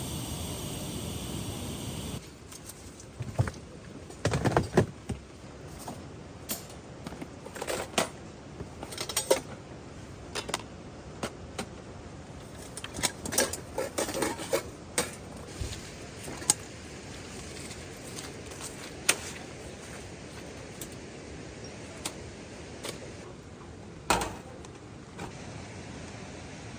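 Steady rain hiss that cuts off about two seconds in. After it, a long run of scattered light clicks, knocks and clinks of things being handled over a softer background of rain.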